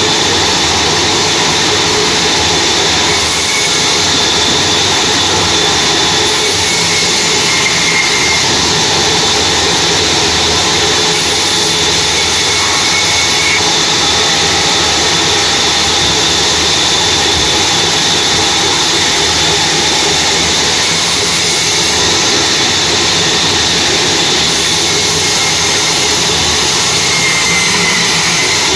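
Large vertical bandsaw running and cutting through logs: a loud, continuous machine noise with a steady high whine.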